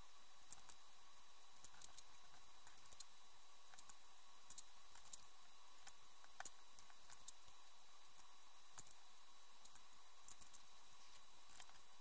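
Small metal craft brads clicking lightly as they are handled and set down on cardboard: scattered sharp clicks at irregular intervals, the sharpest about six and a half seconds in, over a faint steady electrical hum.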